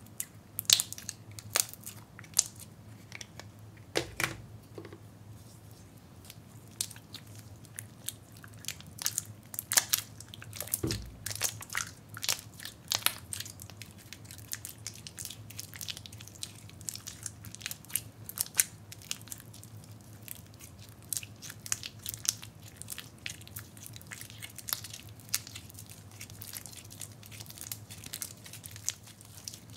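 Hands kneading, squeezing and stretching freshly mixed sticky slime, giving a dense, irregular run of short clicks and squelches as it sticks to and pulls off the skin.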